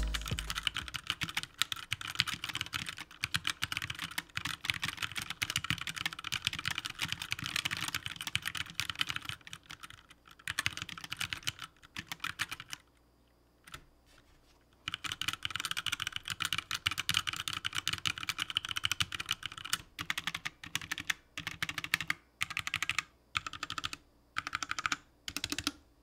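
Typing on a HyperX Alloy Origins 60 mechanical keyboard with linear HyperX Red switches and double-shot PBT keycaps: fast, continuous keystroke clatter, a pause of about two seconds around the middle, then typing again that breaks into separate short runs of keypresses in the last few seconds. It sounds solid, with no pinging or metallic ringing from the aluminium case or springs.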